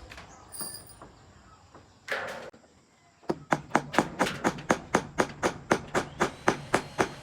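Hammer strikes in a quick, even run of about four blows a second, starting about three seconds in, after a short scuffing noise about two seconds in.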